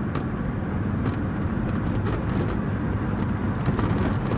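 Fiat Tempra station wagon driving at highway speed, heard from inside the cabin: a steady, low rumble of engine and road noise.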